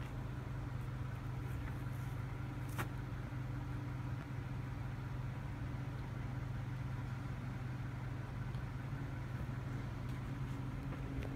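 A Toyota Sienna minivan's engine idling steadily, heard from behind the van as a constant low hum, with one sharp click about three seconds in.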